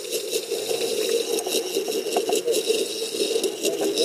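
Small electric propeller thrusters of underwater ROVs churning the water, heard through an underwater camera: a steady churning hum with a thin whine above it and a few faint clicks.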